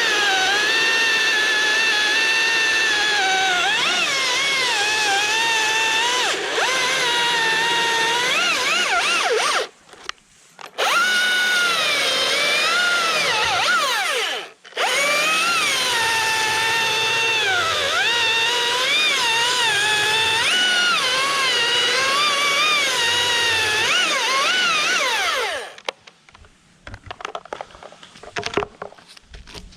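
Husqvarna T540iXP battery chainsaw whining at full speed, its pitch dipping and recovering again and again as the chain bites into wood. It stops briefly twice and then cuts out near the end, leaving a few light knocks.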